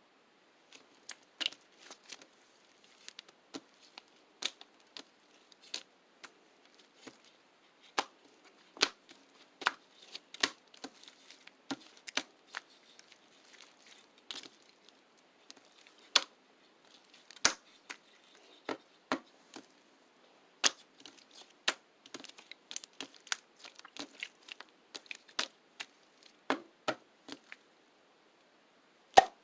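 Irregular sharp crackles and clicks, up to a few a second, with faint crinkling between them: something being handled and crumpled by hand.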